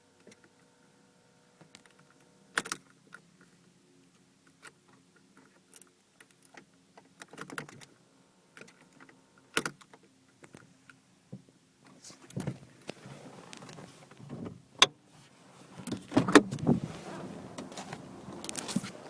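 Ignition key of a Renault Clio 1.2 16V being worked: scattered clicks with keys jangling and no starter motor cranking, the sign of a poor spade connector on the starter motor. A faint steady hum fades out about halfway through, and handling noise picks up near the end.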